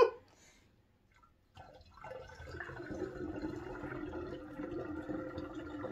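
Water pouring from a plastic pitcher through a funnel into a partly filled glass demijohn, a steady stream that starts about a second and a half in.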